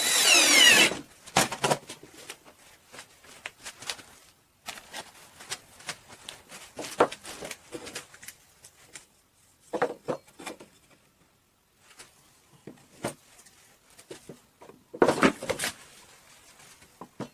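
Porter-Cable 20V cordless drill driving a screw into a board for about a second at the start, its motor rising in pitch, with a short second run just after. Then scattered knocks, clicks and rattles of a bar clamp and wood being handled on a workbench, with a louder clatter near the end.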